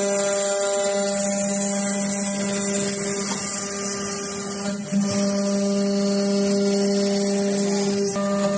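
CNC machine milling aluminum: a steady hum with a stack of even tones and a high hiss, with brief breaks in the sound about five seconds in and again near the end.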